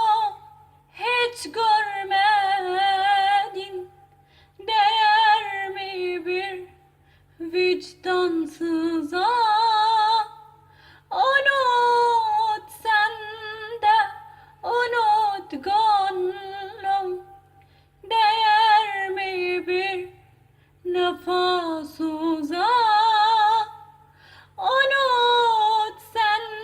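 A woman singing a Kurdish song unaccompanied, in phrases of one to three seconds with short breaks between them, her high notes wavering and ornamented.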